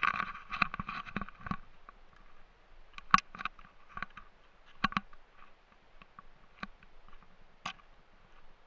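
Footsteps on a rocky dirt trail: irregular crunches and knocks, a dense flurry with rustling in the first second and a half, then single steps spaced about a second apart.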